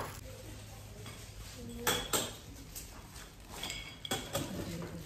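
Metal medals clinking and thin plastic bags crinkling as the medals are handled and bagged: scattered short clicks and rustles, the clearest about two seconds in and again near the four-second mark.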